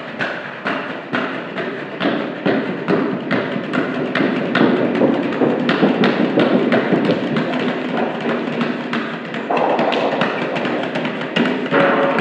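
Live experimental percussion: a steady pulse of sharp taps, about two or three a second, over a dense scraping and rustling texture. A held tone joins near the end.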